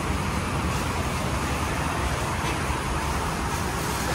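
Steady rumbling background noise, loudest in the low end, with no distinct events.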